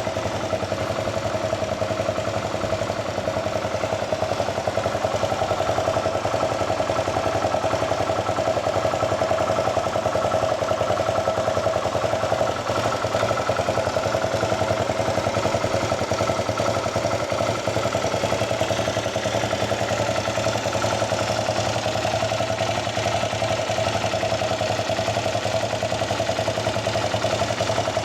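Yamaha WR250X's 250 cc single-cylinder four-stroke engine idling steadily through an aftermarket DELTA Barrel 4 silencer and Powerbox pipe.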